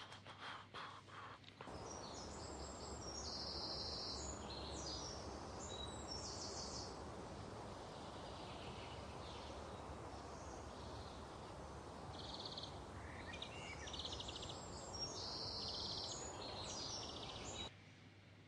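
A few clicks, then a steady outdoor noise bed that starts abruptly about two seconds in and cuts off near the end, with birds calling faintly over it.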